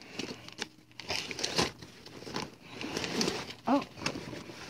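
Plastic snack wrapper crinkling and rustling as it is handled, with irregular crackles.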